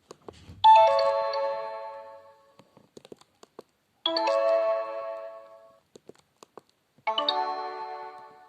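Sony Ericsson W810i mobile phone sound effects: three short electronic chimes, each a quick run of ringing notes that fades away, roughly three seconds apart, with faint clicks between them.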